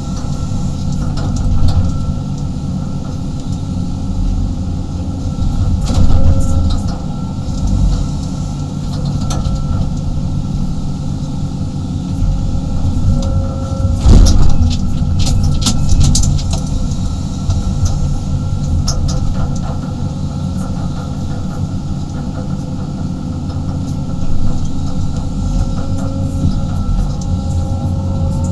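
A 35-ton excavator heard from inside its cab: the diesel engine runs steadily under working load with a steady whine over it. Occasional knocks and scrapes come as the steel bucket digs and drags through dirt, loudest about 6 and 14 seconds in.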